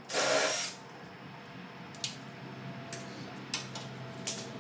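A short hissing burst of about half a second, then four light, sharp clicks spaced through the next few seconds from small parts and wiring being handled in a truck's engine bay.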